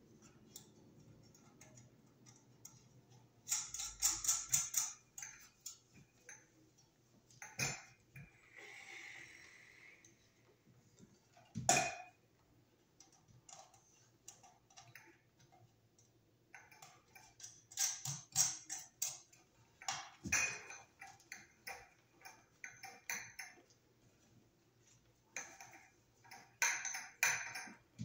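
Scattered small metallic clicks and clinks in short clusters, with one sharper knock near the middle: hand tools and the metal mounting hardware of a vanity bar light being handled as the fixture is fitted to its electrical box.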